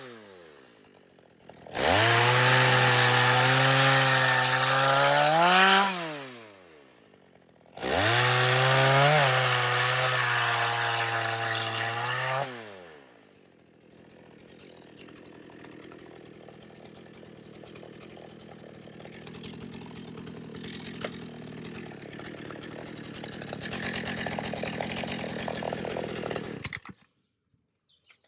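Two-stroke chainsaw engine running in two short spells of about four seconds each, each ending with the engine winding down and stopping. Then a quieter rustling, ticking noise grows slowly louder and cuts off suddenly near the end.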